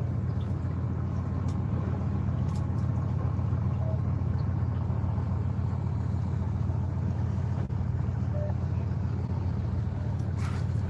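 Fishing boat's engine running steadily: an even, low hum.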